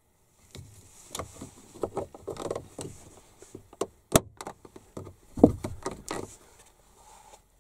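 Irregular knocks, clicks and clunks from work on a Volkswagen Polo's front door, with a sharp click about four seconds in and the loudest thump about a second later.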